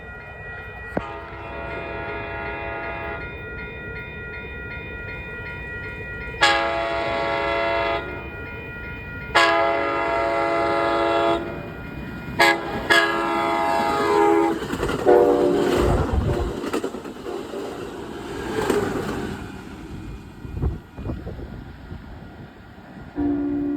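Amtrak Capitol Corridor passenger train sounding its horn as it approaches: a fainter blast about a second in, then two long blasts, a short one and a long one, the pattern for a grade crossing. The train then passes close by with a rush of wheel and rail noise, and another horn blast starts near the end.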